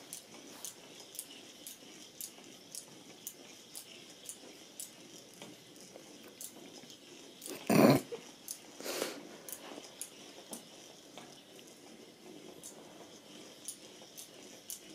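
Battery-powered Weazel Ball toy rolling across carpet, its motorised ball clicking steadily about twice a second. About eight seconds in there is a sudden, louder short sound, with a fainter one a second later.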